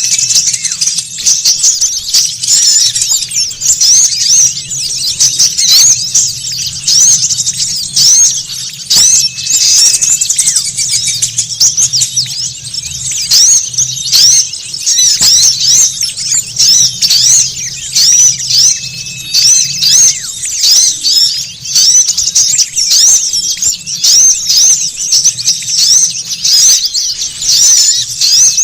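Dense, noisy chorus of many small songbirds twittering and chirping rapidly in high, quick notes with no let-up: a bird-lure recording of agitated small birds. A short, thin steady whistle recurs about every nine or ten seconds, and there is a faint low hum underneath.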